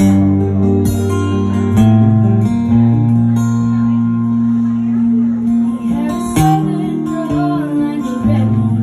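Acoustic guitar playing chords, a new chord struck every second or two.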